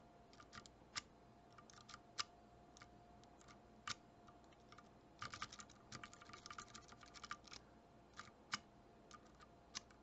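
Faint clicks of a lock pick working the pin tumblers of a Master Lock No. 5 laminated steel padlock. Scattered single ticks are followed by a quick run of clicks around the middle as the pick is worked back and forth across the pins.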